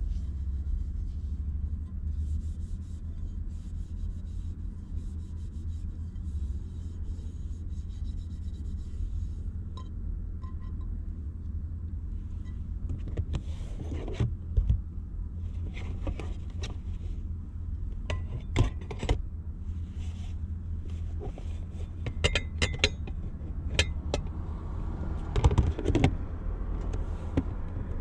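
Paper towel wiping out a frying pan, a soft steady rubbing, then, from about halfway, a series of knocks and clacks as pots and pans are stacked and stowed. A steady low hum runs underneath.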